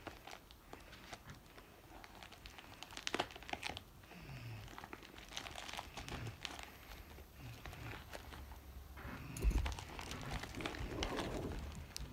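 Packaging crinkling and crackling with scattered sharp clicks and tearing as a mailed package is worked open by hand, with a dull thump about nine seconds in.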